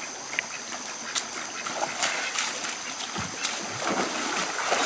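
Feet splashing and wading through a shallow, stony stream, over the steady flow of the water; the splashing starts about two seconds in.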